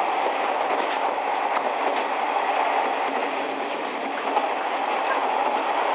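Futatsuboshi 4047 diesel train, converted KiHa 40/47 railcars, running at speed and heard from inside the passenger car: a steady rumble of wheels on rails with a few faint clicks.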